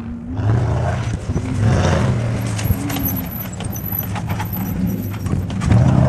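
Hummer H1 driving off-road on dirt, its engine rising and falling with the throttle and a run of clicks and rattles in the middle. The engine is loudest as it revs up near the end.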